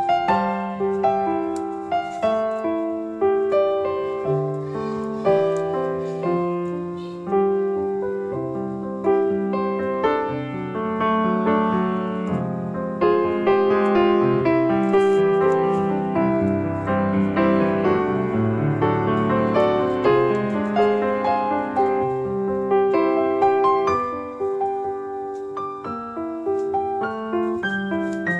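Background piano music: a melody of notes played one after another.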